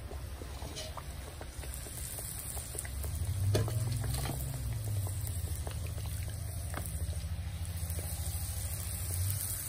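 A disc of dough deep-frying in a wok of hot oil at about 350°, the oil bubbling and sizzling around it with scattered small pops. Underneath runs a steady low rumble that grows louder about three seconds in.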